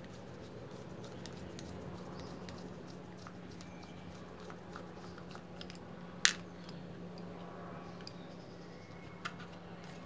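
Screwdriver working screws out of an electric dough mixer's aluminium gear-head cover, with small metal ticks and scrapes, one sharp metal click about six seconds in and a lighter one near the end. A steady low hum runs underneath.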